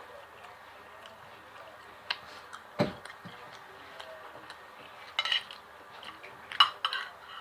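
Cutlery clinking and scraping against a dinner plate during a meal: a few separate clinks, a dull thump just under three seconds in, and two quick clusters of clinks in the second half, the last the loudest.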